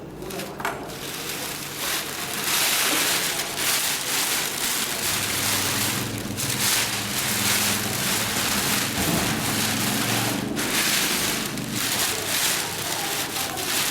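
Dürkopp Adler 72525-101 long-arm zigzag industrial sewing machine running at speed, stitching a rapid, dense patter over a low steady hum. It picks up about two seconds in and eases off briefly twice.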